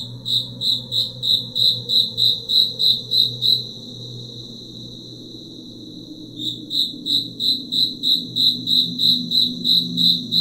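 Insect chirping: a high-pitched trill pulsing about three times a second, in two bouts with a pause of about three seconds between them, over a low steady drone.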